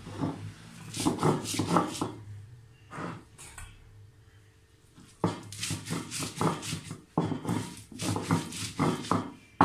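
Stone roller (batta) rolled back and forth over wet chopped coriander and mint on a flat stone grinding slab (sil), a rough scraping grind with each stroke. A short burst of strokes, a pause, then a steady run of about two strokes a second from about halfway through.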